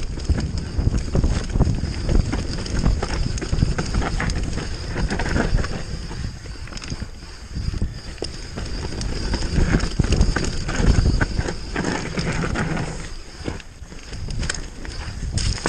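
Giant Reign enduro mountain bike descending a dry dirt trail at speed: tyres rumbling over dirt and roots, with the bike knocking and rattling over bumps and wind buffeting the microphone. The noise eases briefly twice, about halfway through and again near the end.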